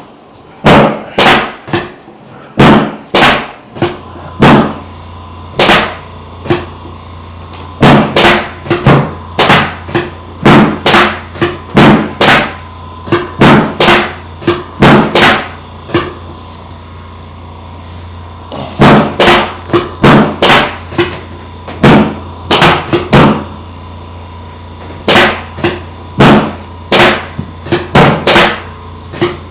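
Sharp, loud clicks fired in quick groups of two to four from a chiropractic adjusting instrument, working over the sacroiliac joints and up the spine. A steady low hum comes in about four seconds in.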